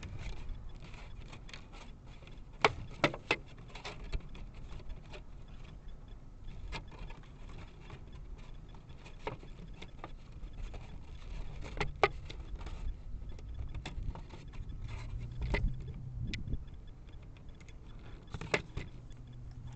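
Scattered sharp clicks and taps over a faint low hum, heard through a parked RC buggy's onboard camera. There is a quick run of three clicks about three seconds in, and louder single clicks about twelve, fifteen and eighteen seconds in.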